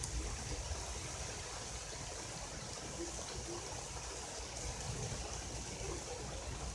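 Heavy thunderstorm rain pouring down, a steady rushing hiss with a low rumble beneath it.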